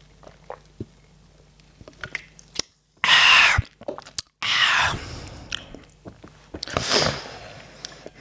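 Close-miked mouth and breath sounds of a man drinking soda and eating: small swallowing clicks at first, then loud breathy sounds about three seconds in, again about four and a half seconds in, and once more near seven seconds.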